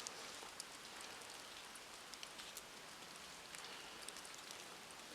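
Faint steady hiss with many light, irregular ticks: wet snow and meltwater drips pattering on surfaces during a heavy snowfall.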